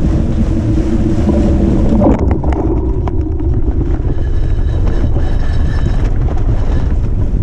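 Strong wind buffeting the microphone over water rushing past the hull of a racing yacht under sail. A few sharp knocks stand out about two to three seconds in.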